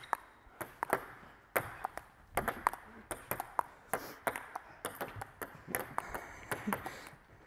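Table tennis rally with two balls in play at once: quick, irregular clicks of the balls striking paddles and the table top, several a second.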